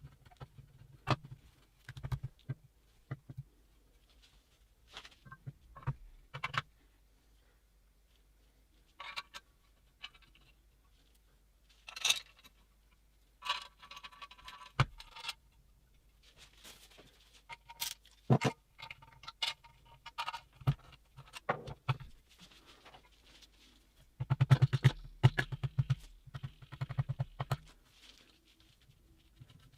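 Metal engine parts clinking and knocking as they are handled and fitted by hand, with scattered sharp clicks and short ringing metal tones. A low buzz comes in short bursts, most strongly in the last few seconds.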